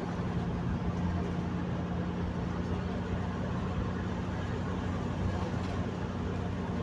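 Steady engine and road noise from inside a moving vehicle's cabin, with a low hum under a constant rush.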